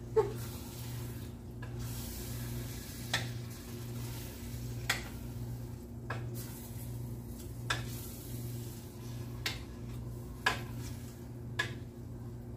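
Wooden spoon stirring thick tomato sauce in a stainless steel pot, knocking against the pot about nine times, every second or two. A steady low hum runs underneath.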